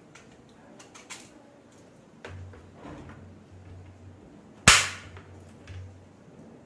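Kitchen knife slicing a raw green mango on a plate: a few soft knocks of the blade, then one sharp, loud click with a short ring about four and a half seconds in, as the blade strikes the plate.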